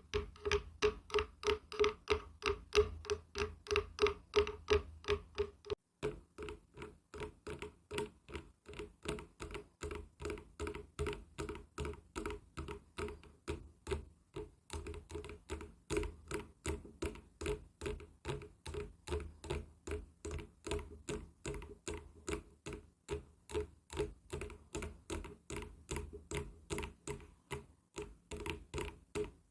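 Rapid, even tapping on wood, about four to five taps a second, each with a short hollow ring. About six seconds in there is a brief break, then the tapping goes on with a slightly different ring.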